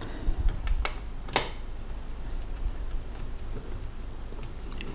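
A few light clicks and taps, the sharpest about a second and a half in, from a small screwdriver and screw being worked back in at the cooling fan of an opened laptop.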